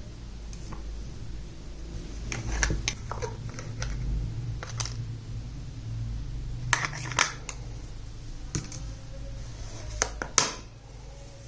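Small plastic toy kitchen pieces being handled and set down: scattered light clicks and taps in small clusters over a low steady hum.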